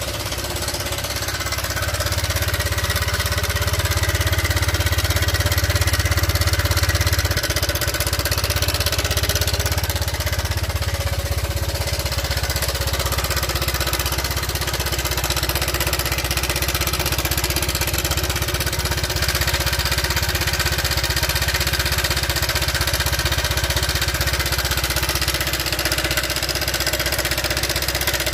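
Honda Vario 125 scooter's single-cylinder engine running after being started. It is slightly louder for the first several seconds, then steady at idle. The engine sound is very rough, a clattering mixed with ticking, the complaint for which the oil and the cam chain tensioner are checked.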